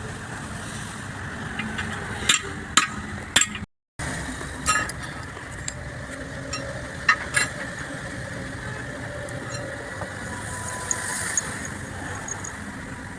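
Sharp metallic clinks of tools and truck gearbox parts being handled, half a dozen scattered over several seconds, over a steady background hum.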